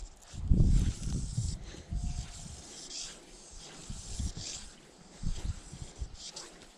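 Fly line swishing through the air in a few short strokes as a fly rod is false-cast, over irregular low thumps, the loudest about half a second in.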